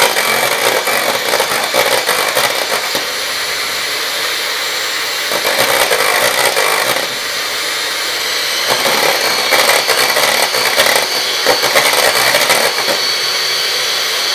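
Electric hand mixer running steadily, its beaters whisking egg whites in a stainless steel bowl: a continuous motor whine that grows louder in stretches. The whites are being beaten to soft peaks.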